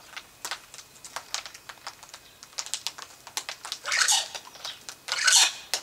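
Yellow-tailed black cockatoo feeding, its beak cracking and crunching woody seed capsules in quick, irregular clicks. Two louder harsh rasps come about four and five seconds in.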